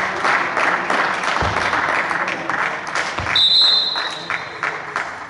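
Spectators clapping and cheering in a volleyball hall, thinning out near the end. About three and a half seconds in, the referee's whistle blows once for just under a second, signalling the serve. A couple of dull thumps are also heard.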